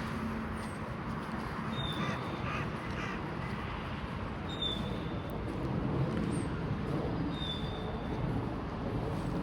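A crow cawing three times in quick succession about two seconds in, over a steady low background rumble. A small bird's short high call repeats every second or two.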